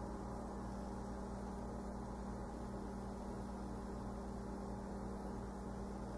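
Steady low electrical hum with a faint hiss and a faint regular pulsing underneath.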